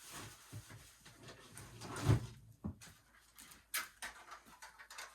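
A plastic smoke alarm being picked up and handled, with rustling, a low thump about two seconds in, and a few sharp clicks after.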